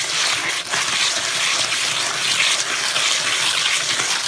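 Hand mag float swishing over a wet concrete slab in a swirl pattern, a steady wet scraping as it brings up the cream.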